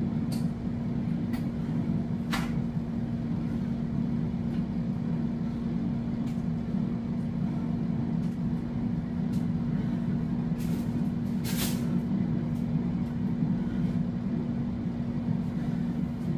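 Steady fan hum of a running air fryer, with a few light clinks of a metal spoon against a frying pan as pan juices are spooned out.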